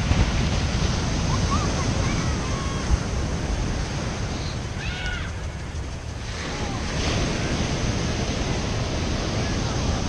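Ocean surf breaking on a sand beach, a steady wash of noise with wind rumbling on the microphone; it eases a little around the middle and builds again.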